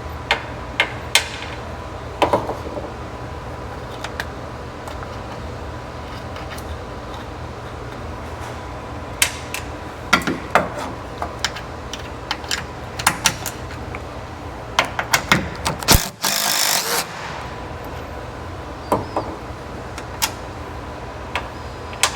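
Scattered clinks and knocks of hand tools and metal parts during work on a Humvee body, over a steady low hum. There is a short burst of hiss about sixteen seconds in.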